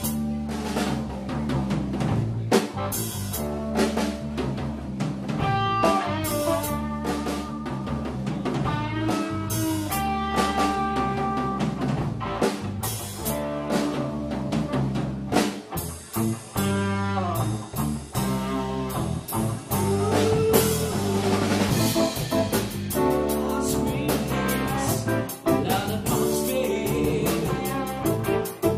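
Live blues-rock band playing: drum kit and electric guitar over bass, a loud, dense full-band passage.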